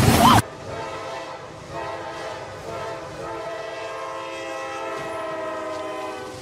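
Diesel locomotive's air horn sounding a long, steady chord of several notes as a warning at a grade crossing. A brief burst of louder noise at the very start cuts off abruptly.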